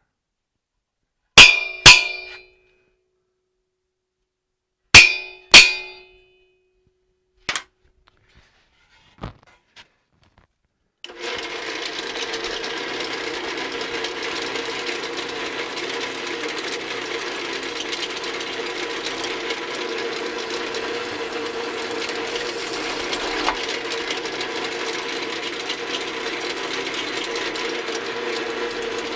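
Hammer striking a center punch on a metal bracket: two pairs of sharp, ringing metallic strikes, then a few light clicks. About eleven seconds in, an electric drill starts and runs steadily, drilling 5/16-inch holes in the metal.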